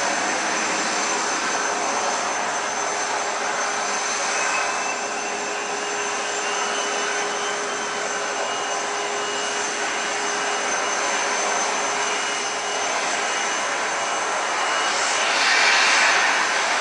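Airbus A380-841 jet engines (Rolls-Royce Trent 970) running during start-up: a steady rushing noise with high whining tones, swelling louder about three-quarters of the way through.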